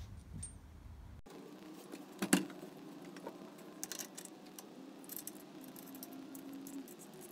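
Light metallic clinks and ticks of a steel cutting blade, washers and nylock nut being handled and fitted over an edger's blade shaft, with one sharper clack a little over two seconds in.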